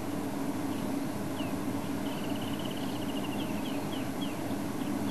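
Small birds calling: scattered short down-slurred chirps, and about two seconds in a rapid trill lasting about a second. Under them runs a steady low hum.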